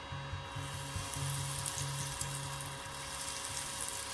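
Tempura batter-coated mushrooms going into hot frying oil: the oil starts to sizzle about half a second in and keeps up a steady hiss as it bubbles around them.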